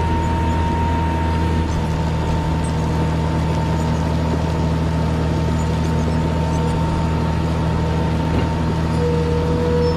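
Caterpillar 120 motor grader's diesel engine running steadily under load as the blade spreads gravel aggregate, with a thin steady whine over the low engine drone.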